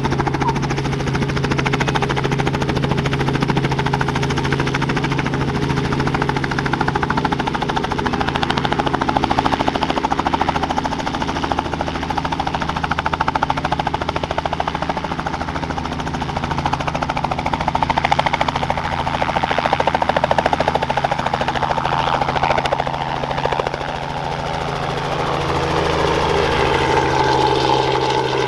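Robinson R44 Raven II helicopter, its six-cylinder Lycoming IO-540 engine and rotors running steadily at take-off power as it lifts off into a hover. Near the end it climbs away past overhead and the pitch of its sound shifts as it goes.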